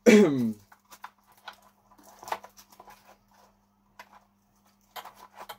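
A man's short wordless exclamation with falling pitch, then scattered light clicks and rustles of plastic parts being handled as a LiPo battery is pushed into an RC car's battery tray. A faint steady hum runs underneath.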